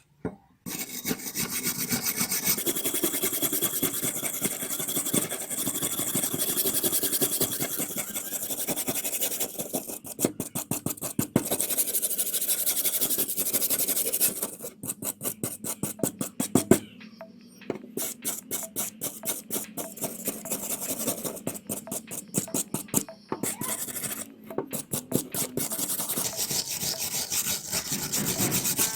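Rust being scraped off a steel screw wrench with a hand abrasive such as a file, wire brush or sandpaper. The scraping comes in long stretches of quick back-and-forth strokes.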